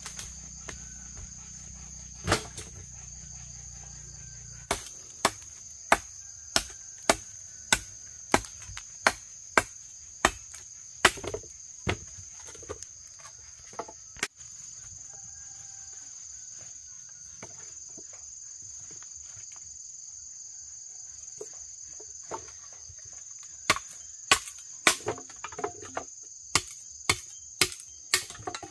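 Sharp chopping strikes, about two a second, in two runs separated by a pause of roughly ten seconds. A steady high-pitched drone of insects runs underneath.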